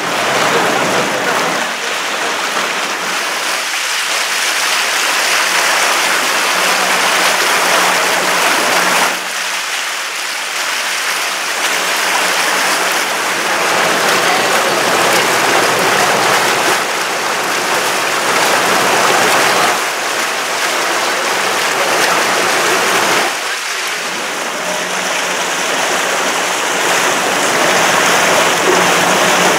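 Water rushing and splashing in the churned wake of a moving motorboat, a loud steady hiss of spray and waves, with a faint low engine hum underneath in places. The rush dips briefly about nine and twenty-three seconds in.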